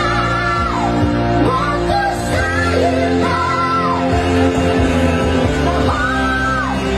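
Two women singing a song's chorus into microphones in high-pitched, long held notes that swell and fall, over amplified backing music.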